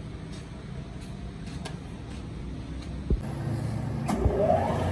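Steady low hum of a workshop motor, with a dull thump about three seconds in and a short rising whine just after four seconds.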